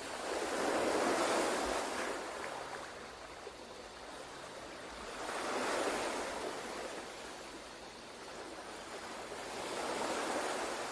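Ocean surf washing in three slow swells about five seconds apart, with a steady hiss of water between them.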